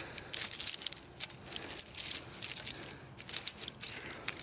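Plastic trash bags and discarded items in a dumpster being handled and rummaged through: irregular bursts of high, crisp crinkling and clicking.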